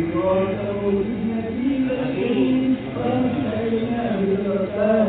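A group of men chanting Islamic devotional verses in Arabic together, several voices overlapping in a drawn-out, melodic line.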